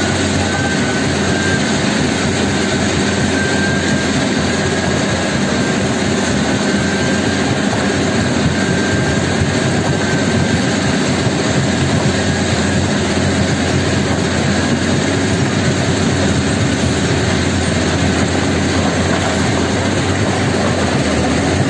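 A stone crusher plant and a Caterpillar excavator's diesel engine running together, a loud, steady mechanical din with no pauses.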